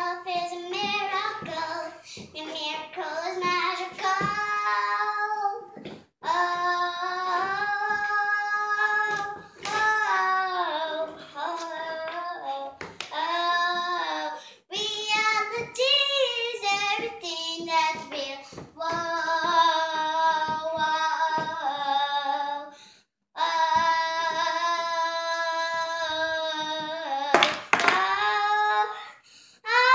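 A girl singing solo into a microphone, in phrases with long held notes and short breaks for breath between them.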